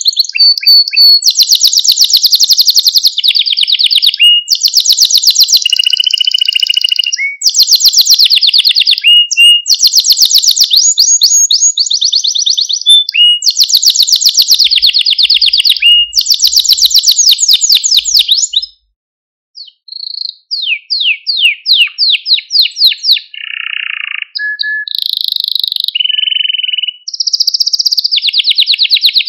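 Male domestic canary singing: a long song made of fast trilled rolls, each phrase a rapid run of repeated notes, switching to a new roll every second or two. The song breaks off for about a second two-thirds of the way through, then picks up again with spaced notes and more trills.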